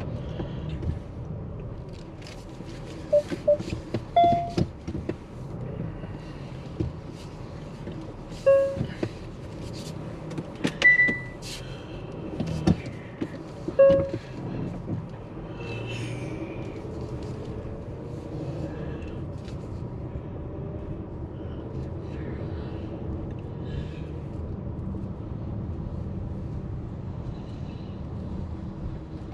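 Car driving on city streets, heard from inside: a steady low rumble of road and engine noise, with a few short beeps and sharp clicks between about three and fourteen seconds in.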